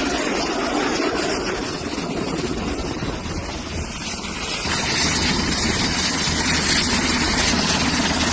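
Steady engine noise, dipping a little midway and filling out again about five seconds in.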